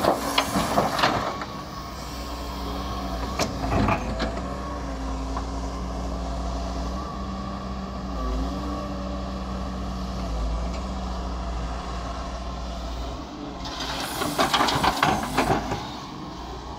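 Doosan DX140W wheeled excavator's diesel engine running steadily, its pitch dipping briefly a couple of times under hydraulic load. Rattling clatter of dirt and stones dropping from the bucket into the steel trolley bed near the start and again near the end, with a shorter clatter about four seconds in.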